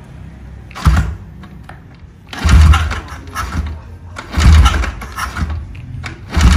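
Drag-race motorcycle engine on a paddock stand, sounding in short loud bursts about every two seconds, the first one weaker, with a low rumble in between.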